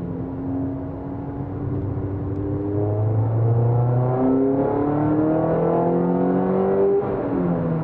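Peugeot 206 RC's 2.0-litre four-cylinder engine heard from inside the cabin, pulling hard under throttle out of a corner, rising in pitch and getting louder. About seven seconds in the pitch drops sharply at an upshift and the engine carries on pulling in the next gear.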